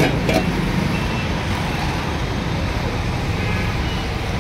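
Steady noise of road traffic on a busy city street, with a brief clink of a steel serving lid near the start.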